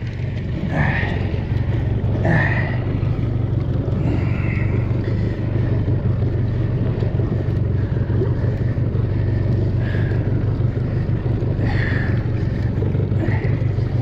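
A small fishing skiff's engine running steadily underneath, with a few short, high squeaks over it.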